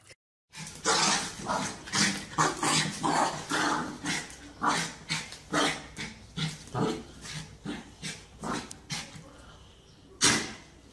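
A puppy growling and barking in short irregular bursts while playing, with one louder bark near the end.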